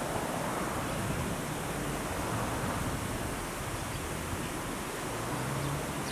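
Steady outdoor background rush with a faint low hum and no distinct bird calls.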